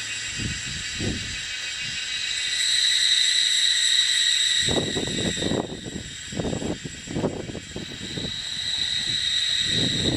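Forest insect chorus: a loud, steady, high-pitched drone. Bursts of low rumble come and go underneath it, most of them between about five and eight seconds in.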